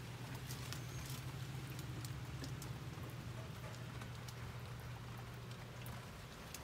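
Rain pattering on a UTV's enclosed cab, heard from inside, with scattered ticks of single drops. A steady low hum runs under it and fades out near the end.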